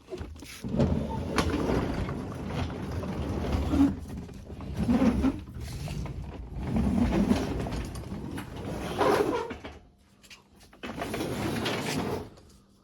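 Manual wooden sectional garage door being pushed up by hand, its steel rollers rumbling and rattling along the metal tracks. The noise stops briefly about ten seconds in, then runs again near the end.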